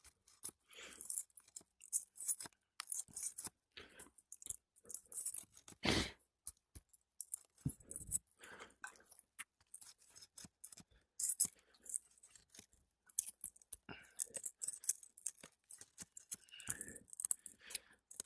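Old, brittle 3-tab asphalt shingles crunching and crackling in many short, irregular bursts as they are worked loose, with a sharper knock about six seconds in.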